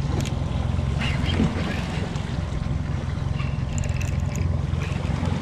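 Outboard motor running steadily, a low drone under wind and water noise.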